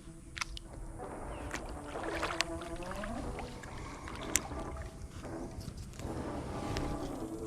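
Background music with held notes, over water sloshing and splashing.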